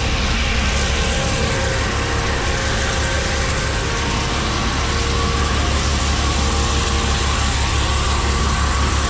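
Heavy truck's diesel engine idling steadily with a low, even drone.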